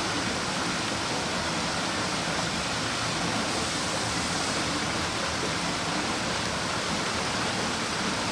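Steady, even rushing noise that holds level throughout, with no distinct knocks, crunches or tones standing out.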